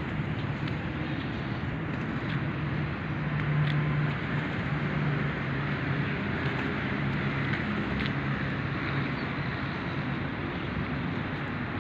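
Steady low hum of road traffic and vehicle engines in the background, swelling slightly about four seconds in.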